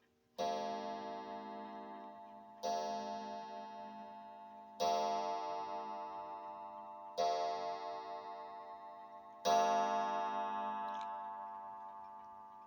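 Homemade gong struck five times, about every two and a half seconds; each strike rings on with many steady overtones and slowly fades, the last strike being the loudest.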